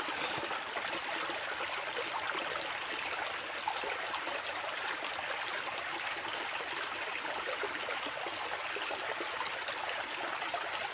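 Small, muddy forest creek running steadily over a shallow rocky bed, an even rushing and babbling of water.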